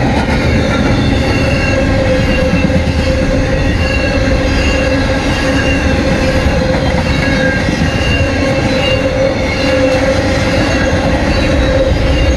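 Double-stack intermodal freight cars rolling steadily past at close range: a continuous rumble of steel wheels on rail, with steady high squealing tones from the wheels.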